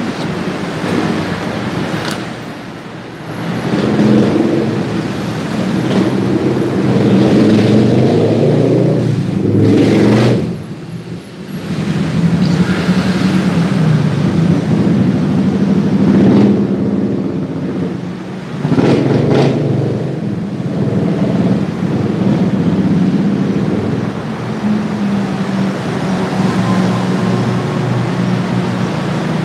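An engine running steadily, its pitch shifting now and then, with a few brief louder rushes.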